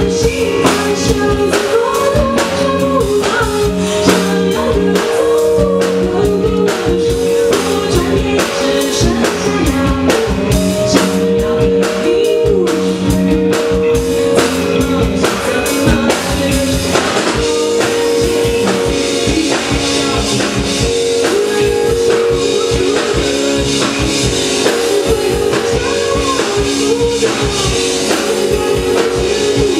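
Live rock band playing a song: a drum kit keeps a steady beat under sustained chords, with a singer's voice over the top.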